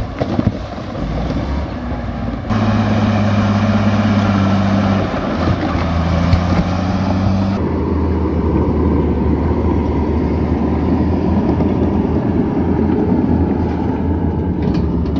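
Komatsu crawler bulldozer's diesel engine running under load as its blade pushes rocks and mud. The engine note changes abruptly twice, about two and a half seconds in and again about halfway through.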